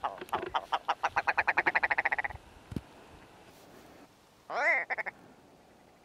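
Red grouse calling: a fast rattling run of guttural clucks lasting about two seconds, then, near five seconds in, a shorter loud call ending in a few quick clucks. This is the red grouse's territorial call.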